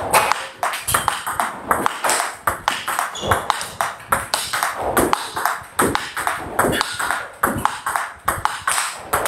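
Table tennis rally: the ball clicks off the rubber-faced bats and bounces on the table in a fast, steady rhythm of backhand exchanges.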